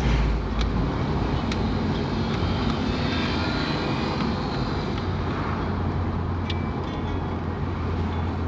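Steady engine hum and road noise of a moving vehicle, with a few faint clicks.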